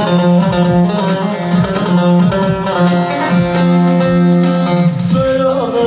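Background music: a plucked string instrument playing a melody over a held low note.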